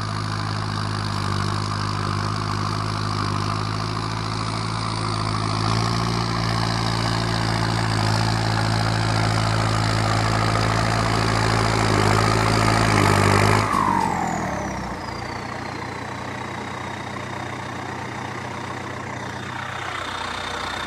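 Kubota tractor's diesel engine with a modified loud exhaust of twin straight stacks, running steadily under load while it pushes dirt. About two-thirds of the way through it drops back to a lower, quieter idle, with a high whine that falls and then settles into a steady whistle.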